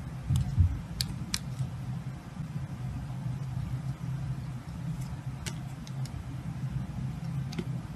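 Snap-off utility knife blade cutting into a bar of soap, giving scattered crisp clicks and crackles as slices come away, mostly in the first second and a half and again around five to six seconds in. A steady low hum runs underneath.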